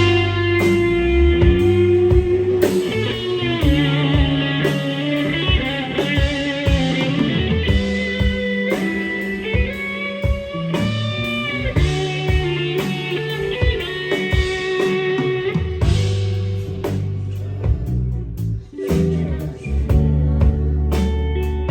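Instrumental rock music: an electric guitar line with bending notes over bass and drums, with no singing.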